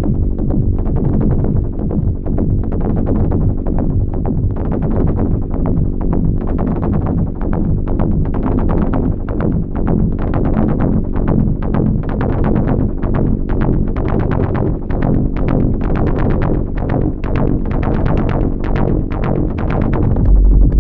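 Improvised techno played live on hardware synthesizers and groove boxes (Korg Volca units, Electribe sampler): a steady, repeating bass line under a regular electronic percussion beat. Shortly before the end a much heavier deep bass comes in.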